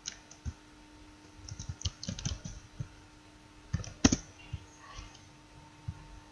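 Computer keyboard keystrokes and mouse clicks: scattered taps, a quick run of keystrokes about two seconds in and a sharper click about four seconds in, over a faint steady hum.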